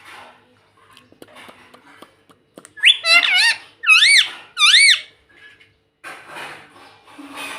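Indian ringneck parakeet giving three loud squawks about three seconds in, each wavering quickly up and down in pitch, with quieter chattering before and after.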